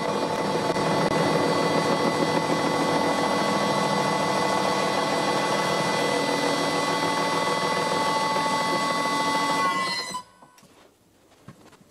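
Old lathe spindle driving an 80 mm six-insert face mill through a light finishing cut on a metal block: a steady mechanical whine over cutting noise. About ten seconds in, the whine dips and the sound cuts off.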